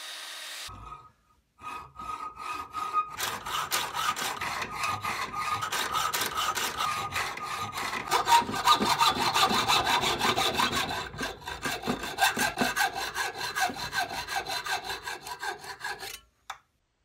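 A copper rod being cut to length with a hand saw: steady back-and-forth saw strokes, quickening after the first few seconds, then stopping shortly before the end.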